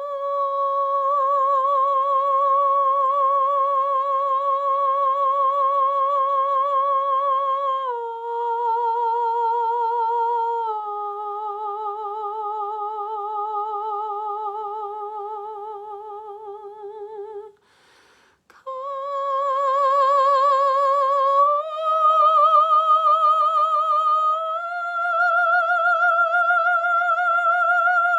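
A woman's voice singing wordless, long-held tones with a wavering vibrato, as sound-healing vocal toning. The note steps down twice, breaks for a breath about 18 seconds in, then climbs in two steps to a higher note.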